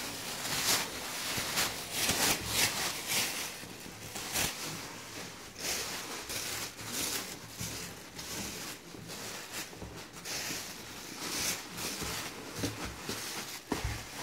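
Thin plastic grocery bags rustling and crinkling in irregular bursts as they are crammed by hand into a bag holder.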